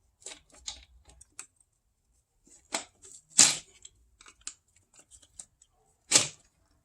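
Plastic clicks and snaps from a PCV hose connector clip being pried and worked loose. Light ticking runs through it, with two sharper snaps, one about three and a half seconds in and one near the end.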